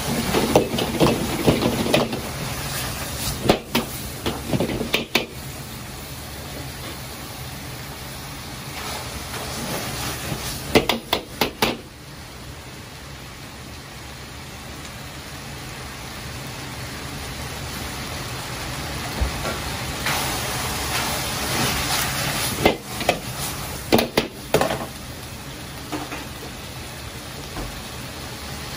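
Stir-fry sizzling in a carbon-steel wok as potato-starch slurry is stirred in to thicken the sauce, with the metal ladle clanking and scraping against the wok in several short bursts, over the steady rush of the gas burner.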